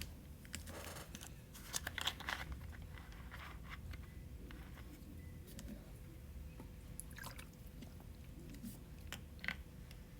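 Faint, scattered small clicks, crackles and scrapes of tools and parts being handled during iPhone 11 screen-replacement work, busiest between about one and two and a half seconds in, over a steady low hum.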